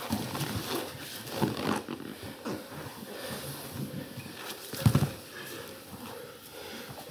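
Grapplers rolling on training mats: bodies scuffing and thumping on the mat, with heavy breathing and grunting, and a heavier thud about five seconds in.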